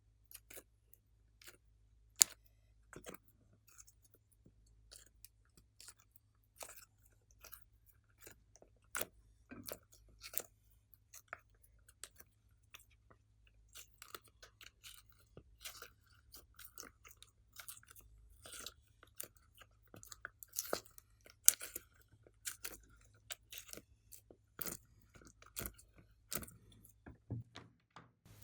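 Glossy slime being squished and stretched by hand, making irregular sticky clicks and crackling pops.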